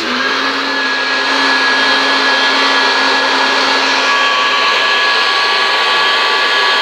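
Personal bullet-style blender running steadily with a loud, even motor whine, blending a liquid chocolate and milk mixture.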